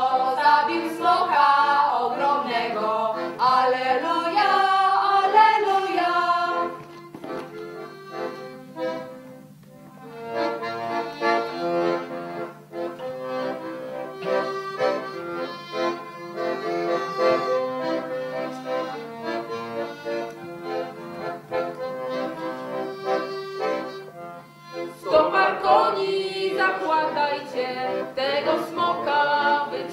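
A group sings a traditional Easter carol, then stops about six seconds in. An instrument then plays steady, held chords alone, and the singing comes back in about 25 seconds in.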